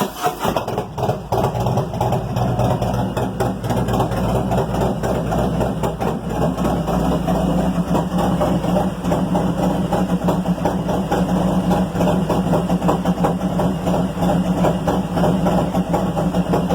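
Harley-Davidson Milwaukee-Eight V-twin, bored out to 124 cubic inches in a 2017 Road Glide, idling steadily at operating temperature through Advanced Sycles True Duals exhaust with big mufflers.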